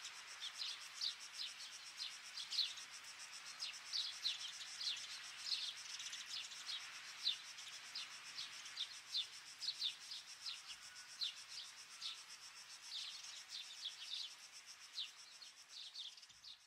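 Small birds chirping: many short, high, falling chirps, several a second in an uneven run, over a faint hiss, fading out at the very end.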